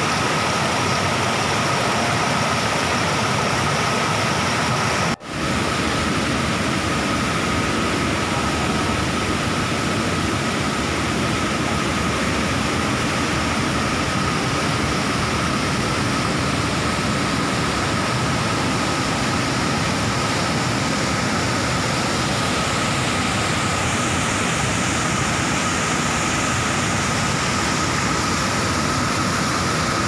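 Waterfall water rushing steadily over rocks, with a brief dropout about five seconds in.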